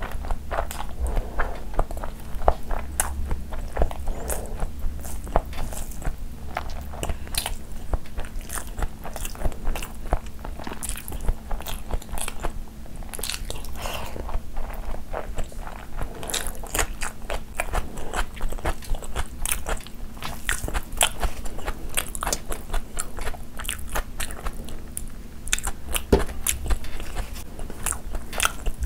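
Close-miked chewing and biting of spicy mutton curry and rice eaten by hand: an uneven, continuous run of many small sharp wet clicks, with a faint steady hum underneath.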